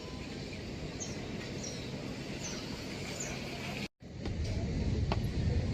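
Steady outdoor background noise with several short, high bird chirps. About four seconds in the sound drops out for a moment, then returns louder.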